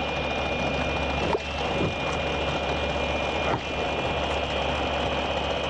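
Steady machine drone: a continuous low hum with a thin high whine held over it, from a running motor or engine.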